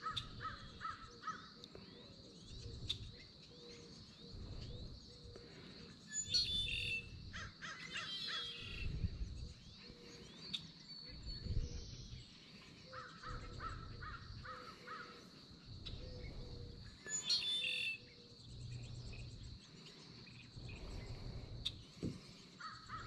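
Birds calling in several short bursts, the loudest about a third of the way in and again about three-quarters through, over low rumbles of wind on the microphone.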